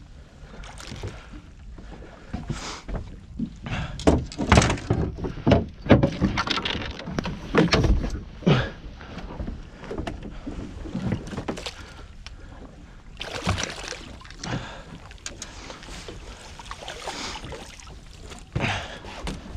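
Irregular splashing at the water's surface and knocks against a boat's side and deck as a hooked fish is netted and lifted aboard in a landing net. The busiest stretch is in the first half.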